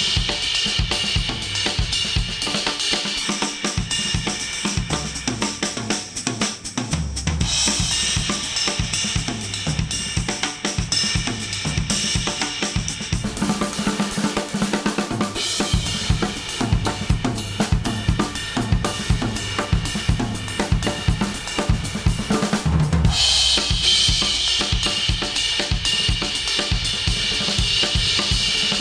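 Instrumental music with a full drum kit: snare, bass drum, hi-hat and cymbals over a steady beat, with the arrangement shifting several times. It is played back through studio headphones and picked up by an artificial-ear simulator.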